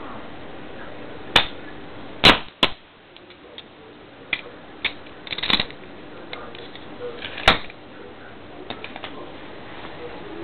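Sharp metallic clicks of a knife's blade mechanism being worked open and shut by hand, the loudest a quick double click a little over two seconds in and another strong snap near seven and a half seconds, with lighter clicks and handling between.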